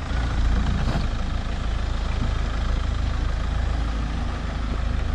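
Mahindra Thar's engine running steadily as the 4x4 moves slowly through soft sand on an off-road slope.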